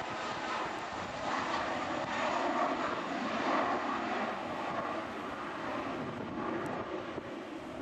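Cessna 551 Citation II/SP's twin Pratt & Whitney JT15D turbofans running at takeoff power during the takeoff roll, a steady jet noise that eases slightly over the last few seconds.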